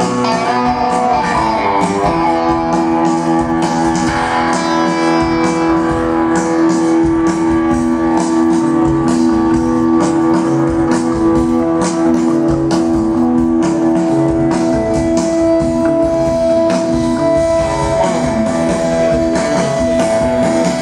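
Live band playing an instrumental soul-rock number: electric guitars, bass guitar and drums keep a steady beat, while a Hammond organ holds long steady notes over them.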